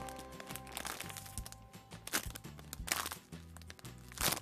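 Plastic squishy packaging crinkling and crackling in short bursts as the soft squishy is squeezed and handled, over background music with a repeating bass line.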